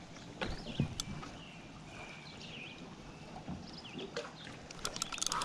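Spinning fishing reel and rod handled while a hooked fish is played: scattered faint clicks and ticks, quickening into a rattle of clicks near the end.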